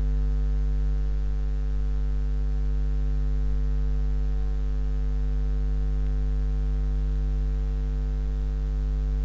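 Steady, loud electrical mains hum picked up by the recording chain, an unchanging low buzz.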